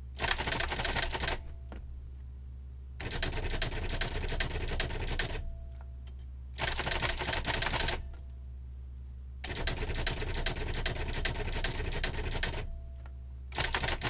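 Smith Corona Ultrasonic electronic daisy-wheel typewriter striking characters in five quick runs of rapid clicking with short pauses between, as its WordEraser function removes a mistyped word and the word is retyped. A steady low hum carries on under the runs.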